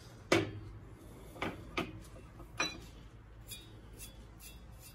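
Bench vise being opened and a forged steel bar taken out of its jaws: one sharp metal clank, then three lighter knocks and a few faint clinks.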